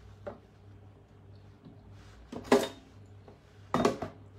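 Pots and kitchen utensils clattering, three sharp knocks and clangs, the loudest about halfway through, over a low steady hum.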